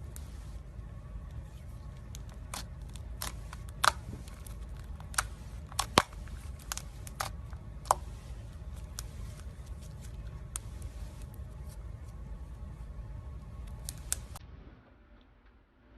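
Slime being squished by hand, giving irregular sharp pops and clicks over a steady low hum; the popping stops near the end.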